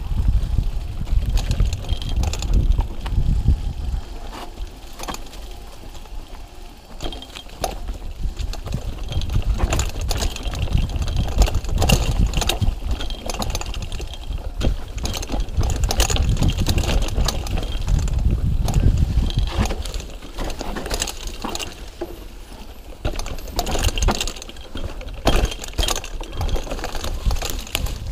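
Mountain bike riding fast down a dirt forest trail: its tyres roll over dirt and roots, and the bike rattles and clacks over the bumps. Wind buffets the microphone as a heavy low rumble that rises and falls with speed.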